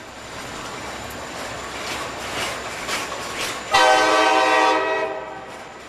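Freight cars rolling past with wheel clatter over the rail joints. About four seconds in, the EMD SD70 locomotive's K5LA five-chime air horn blows one loud blast lasting just over a second.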